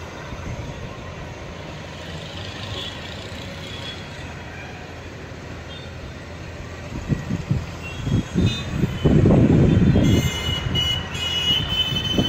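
Wind on an outdoor microphone: a steady low rumble at first, then strong irregular gusts buffeting the microphone from about seven seconds in as the storm front arrives.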